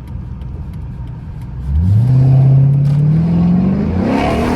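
Chrysler 300 SRT's 6.4-litre Hemi V8 running low, then from about two seconds in accelerating hard, its pitch climbing steadily. Near the end a loud rushing hiss rises over it.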